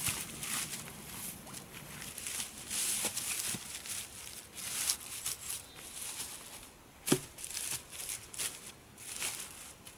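Gloved hands rustling and scraping through moss, earth and dry plant litter while packing it into the base of a pile of dead logs. There is one sharp knock a little after the middle.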